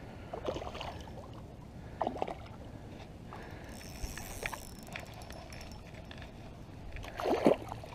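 Scattered splashes and sloshing of water from a hooked largemouth bass being played and brought in to the bank, with a louder burst near the end.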